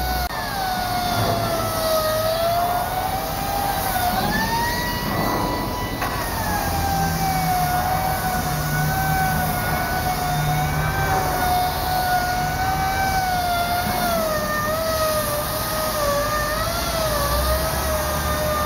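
Steady high whine of a handheld power tool working on a steel ship hull. Its pitch wobbles, dipping and rising as the load changes, over a hissing background.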